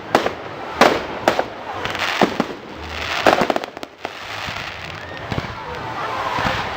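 Fireworks going off: a string of sharp bangs at irregular intervals, most of them in the first few seconds, with crackling in between.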